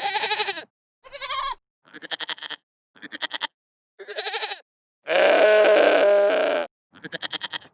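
A goat bleating again and again: about seven separate calls with short silences between them. Most are short and wavering. One longer, louder call runs from about five seconds in to near the end.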